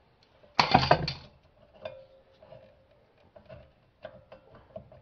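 Rear brake caliper and pads being worked onto the bracket over the rotor by hand: a loud metal clatter about half a second in, then scattered light clicks and knocks as the caliper is settled into place.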